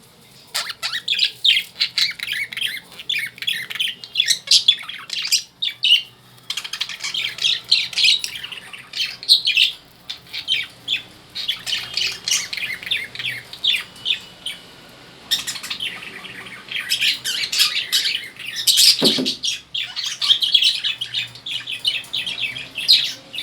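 Caged lovebirds chattering: rapid runs of shrill chirps and squawks with short pauses between them. A single short knock about three-quarters of the way through.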